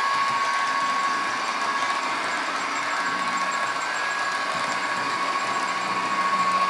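Train engine running steadily along the track, a constant high whine over an even mechanical rumble.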